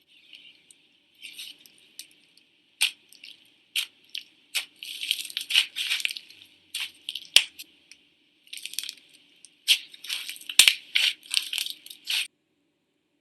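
Slime being poked and squished by hand, giving irregular bunches of crisp clicks and crackly pops with short pauses between them.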